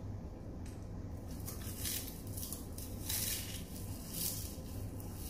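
Crispy roasted seasoned seaweed sheets crackling as they are bitten and chewed, in a run of irregular sharp crunches that starts about a second in.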